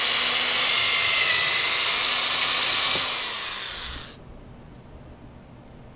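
Power drill boring a hole through the bimini top's frame pipe to take a pop rivet. It runs steadily with a faint motor whine and stops about four seconds in.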